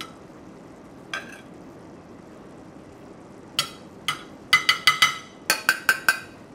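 Metal spoon against a stainless steel saucepan while cooked rice is spooned out onto a plate: a couple of light clicks, then from about halfway in a quick run of about a dozen sharp, ringing clinks as the spoon knocks against the pan.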